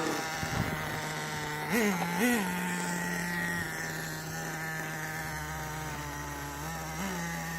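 Small two-stroke engine of an RC car idling steadily, with three short throttle blips: two quick ones about two seconds in and another near the end.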